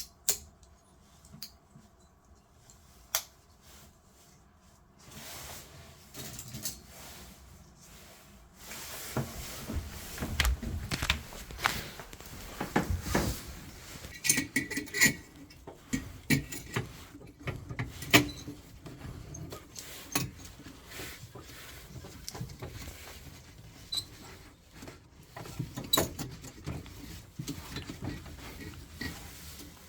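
Hand work with small metal parts and tools: clinking, tapping and rattling with scattered sharp clicks. It is sparse at first and gets busier after about nine seconds.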